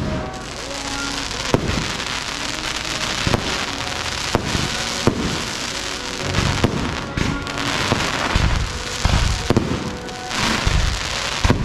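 Aerial fireworks display: a dense hissing crackle throughout, punctuated by sharp bangs every second or so, with heavier low booms in the second half.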